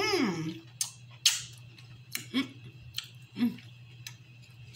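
Cooked lobster shell being handled and pulled apart by hand while the meat is picked out: scattered sharp clicks and small cracks, the loudest about a second in.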